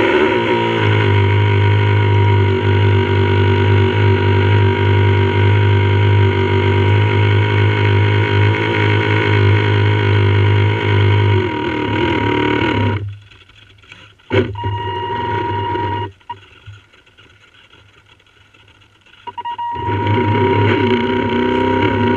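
RC model boat's motor running, picked up through the hull by the onboard camera: a steady hum with a high whine. It cuts out about halfway through, gives a short burst, cuts out again for a few seconds, then picks back up as the throttle comes back on.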